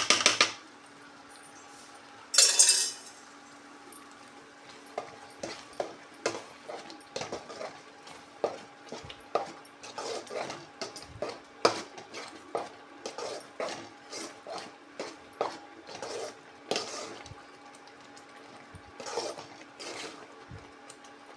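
A spoon stirring and scraping thickening jackfruit jam in a cooking pan: one longer scrape about two and a half seconds in, then a steady run of irregular clinks and scrapes against the pan. A faint steady low hum runs underneath.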